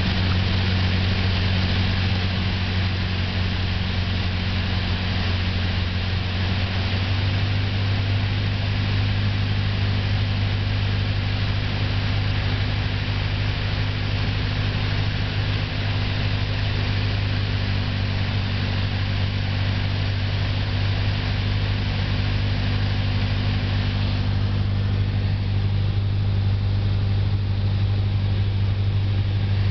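A small propeller plane's piston engine and propeller droning steadily, heard from inside the cockpit, with a strong low steady hum under a layer of hiss. A few seconds before the end the hiss drops off noticeably while the engine hum carries on.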